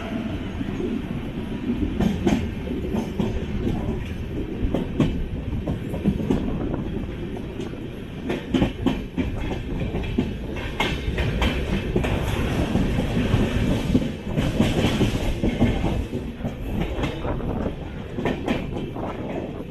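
LHB passenger coach of an express train running at speed: a steady low rumble of wheels on the rails, with frequent irregular clicks and knocks as the wheels pass over the track.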